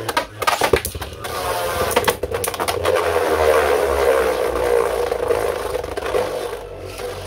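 Two Beyblade Burst tops, Brave Valkyrie and Tempest Dragon, spinning in a plastic Beyblade stadium. A quick run of sharp clacks from contact in the first couple of seconds gives way to a steady whirring scrape of their tips circling on the stadium floor.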